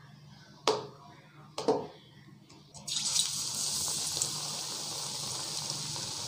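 Two sharp knocks about a second apart, then, about three seconds in, a batter-coated brinjal slice goes into hot oil in a steel kadai and starts sizzling steadily as it deep-fries into beguni.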